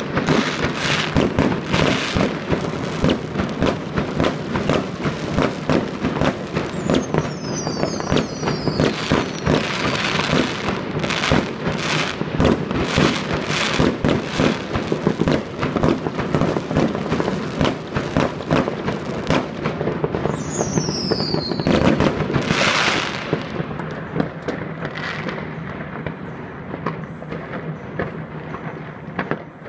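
Many fireworks going off at once: a dense, continuous crackle of bangs and pops, with two falling whistles about seven and twenty seconds in. The barrage thins out over the last several seconds.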